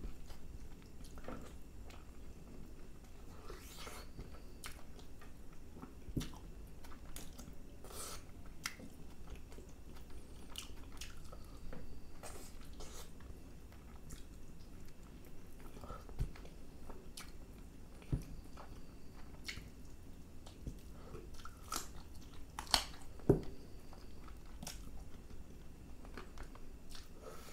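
A person eating spicy chicken masala curry by hand: chewing and biting the chicken, pulling meat off the bone, with scattered wet mouth clicks. Two louder, sharper clicks come about two-thirds of the way through.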